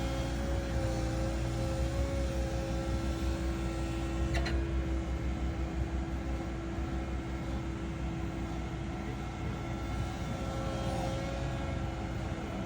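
CAT315 hydraulic excavator's diesel engine running steadily with a constant hum, and a single click about four and a half seconds in.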